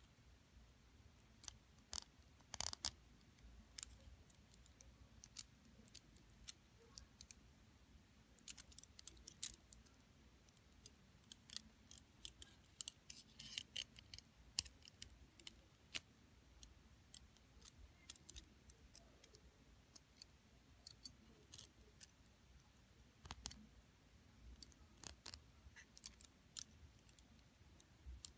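Metal bangle bracelets and rhinestone rings clicking and tapping together as they are turned over in the fingers: scattered sharp, irregular clicks, thickest around the middle.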